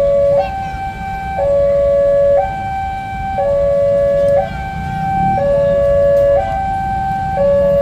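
A two-tone hi-lo siren or alarm, switching between a high and a low tone about once a second, over a low steady rumble.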